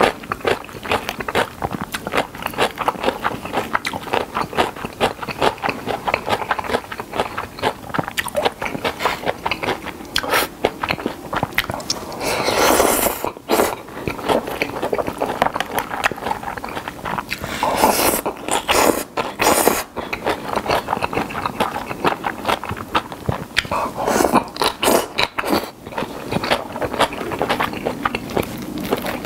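Close-miked mukbang eating: a person chewing a mouthful of spicy whelk and somen noodles, with a steady run of wet, crunchy chewing clicks. Three louder stretches, about halfway, about two-thirds in and near the end, are noodles being slurped.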